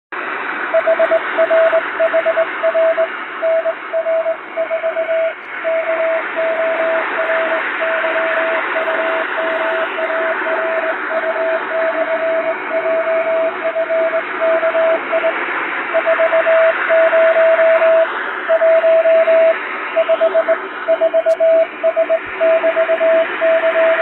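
Morse code telegram sent by hand on a straight telegraph key, heard as a single steady tone keyed on and off in dots and dashes. It plays through a constant shortwave-style hiss with added noise and fading.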